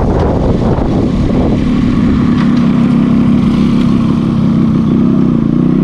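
Motorcycle engine running steadily at low speed, heard up close, with wind rushing on the microphone that dies away in the first second or two.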